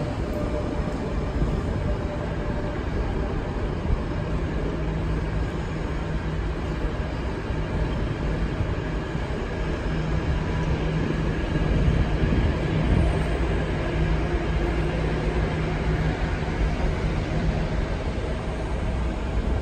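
NS intercity train of ICR coaches rolling along the platform track: steady wheel-on-rail rumble with a low hum underneath.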